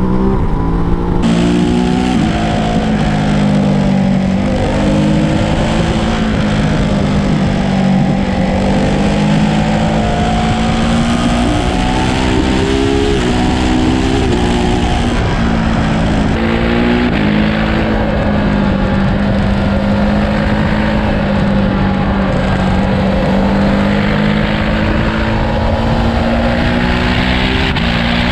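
Ducati DesertX's 937cc L-twin engine running under way on the road, its note rising and falling with the throttle, over a steady rush of wind and tyre noise.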